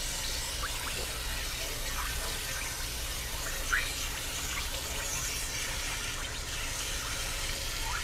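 Water gushing and splashing steadily out of an RV water heater's drain opening while a curved tank-rinser wand sprays inside the tank, flushing out built-up calcium sediment.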